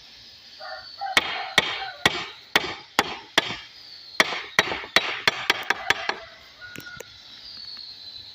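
Hammer blows on wood, knocking the joints of a wooden window frame together: a run of sharp knocks about two a second, coming quicker and lighter near the end and stopping about six seconds in.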